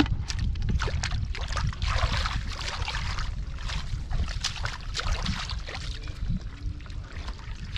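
Shallow muddy water splashing and sloshing irregularly as someone works in it, over a steady low rumble.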